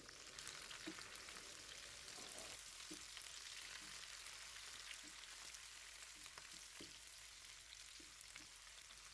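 Chopped onion, garlic, chilies and curry leaves sizzling in hot ghee in a frying pan: a faint steady hiss with scattered light ticks.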